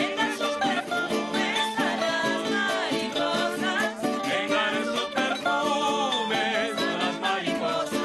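A mixed group of men and women singing a traditional eastern Venezuelan folk song into microphones over a steady plucked-string accompaniment.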